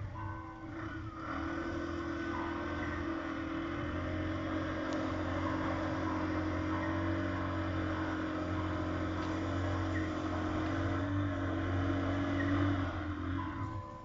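A vehicle engine held at steady high revs, as if straining under load. It climbs a little near the end, then eases off.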